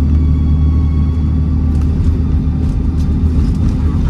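Alexander Dennis Enviro400 Trident double-decker bus engine running steadily under way, heard from inside the bus as a deep, even drone. A faint steady turbo whistle sits above it, with a few brief rattles.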